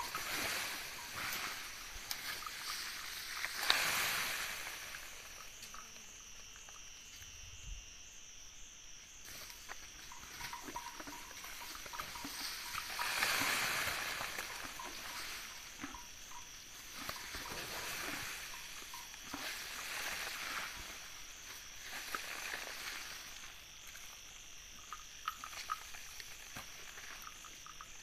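An Asian elephant mother and calf feeding: repeated bursts of rustling and crunching as they pull at and chew banana leaves and stems in dry leaf litter, loudest about four seconds in and again around thirteen seconds. Under it runs a steady high insect drone.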